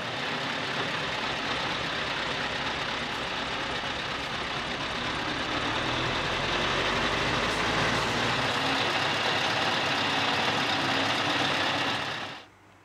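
Scania S520 V8 truck with a drawbar trailer driving slowly past at close range: a steady engine rumble mixed with tyre and road noise. The sound cuts off suddenly near the end.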